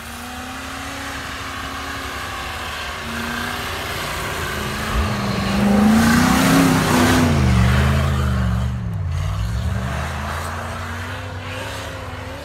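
Off-road 4x4's engine revving as it pushes through deep snow. The engine's pitch swings up and down, and it grows louder as the vehicle passes close by about six seconds in, then fades as it moves away.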